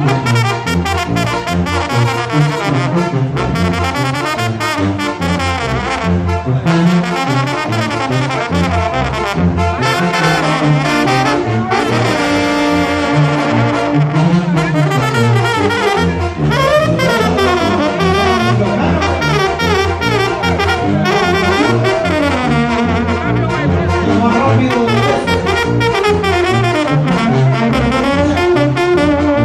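Banda brass band playing live in an instrumental stretch: trumpets and trombones carry the melody over a pulsing tuba bass line.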